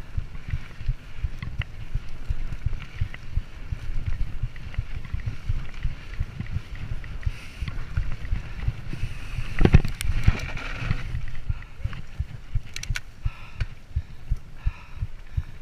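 Mountain bike being ridden fast over a bumpy dirt trail: a dense low rumble of tyre and frame jolts with scattered rattling clicks, heard close to the rider's camera. A sharp knock about ten seconds in is the loudest moment, followed by a brief hiss.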